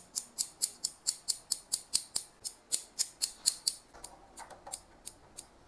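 Hair-cutting shears snipping hair as they work over a comb, in a fast, even run of about five snips a second. About four seconds in, the snips thin out to a few scattered ones.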